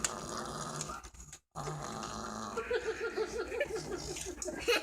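Snoring, ending in a run of quick, evenly spaced snorts, about five a second, over the last two seconds.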